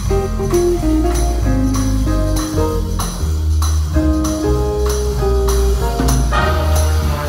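Jazz band playing: a drum kit keeps time with cymbal strokes about twice a second, over low bass notes and an electric guitar. Horns come in near the end.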